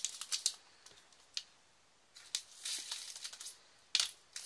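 Soft rustling of a small plastic bag and scattered sharp clicks as diamond painting rhinestones and a plastic tray are handled, with a louder rustle about four seconds in.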